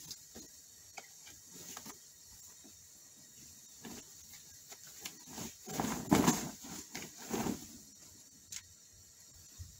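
Bed sheet rustling and swishing as it is handled, shaken out and flung over a bed, with the loudest swishes from about five and a half to seven and a half seconds in.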